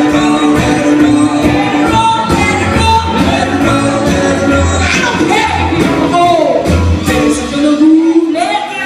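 Live band playing: a woman singing over electric guitar, upright double bass and a steady drumbeat. The low bass notes drop out about three-quarters of the way through.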